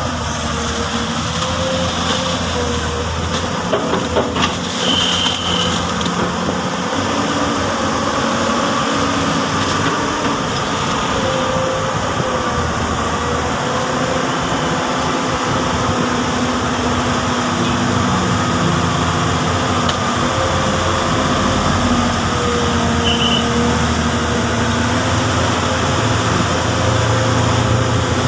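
Komatsu PC200 hydraulic excavator working, its diesel engine running steadily with the pitch shifting as the hydraulics take load. A few knocks come about four seconds in.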